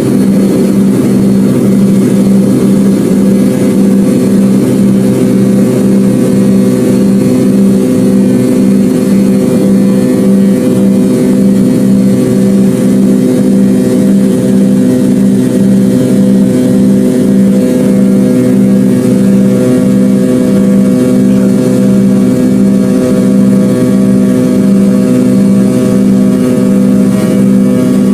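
McDonnell Douglas MD-82/83 airliner's rear-mounted Pratt & Whitney JT8D turbofans running steadily. It is a loud, even drone holding a few fixed tones, one of them throbbing in a regular beat. A higher tone joins about halfway through.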